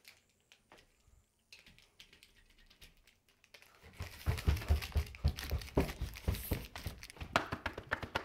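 Faint rustling and clicks of a phone being handled, then, from about four seconds in, a quick run of heavy footsteps thudding down carpeted stairs, with clothes and phone rustling over them.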